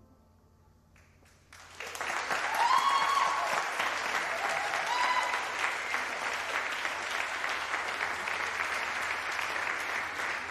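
Audience applauding, starting about two seconds in after a brief silence and keeping up a steady clapping, with a couple of short cheers near the start.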